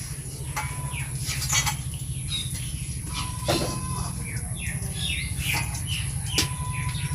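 Small birds chirping, many short downward-sliding chirps, over a steady low hum.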